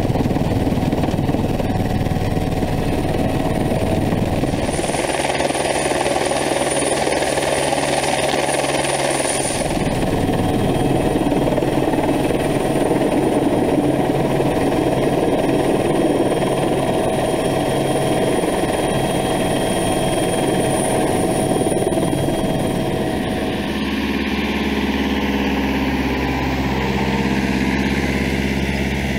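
Steady helicopter cabin noise in flight, heard from inside: a dense engine and rotor drone with a thin high turbine whine over it. About 24 seconds in, it cuts abruptly to a vehicle engine idling with a steady low hum.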